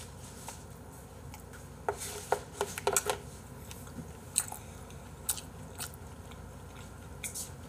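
A person chewing a mouthful of raw beef sashimi, with soft wet mouth clicks clustered about two to three seconds in and a few scattered ones after.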